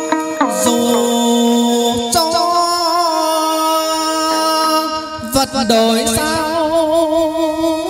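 Chầu văn ritual music: a singer holds long, wavering notes over a plucked moon lute (đàn nguyệt), with a few sharp percussion strokes.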